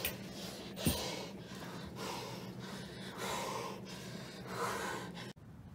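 A person gasping and breathing heavily, in ragged breaths about one a second, over a low steady hum. A short rising sound comes about a second in. The sound cuts off suddenly shortly before the end.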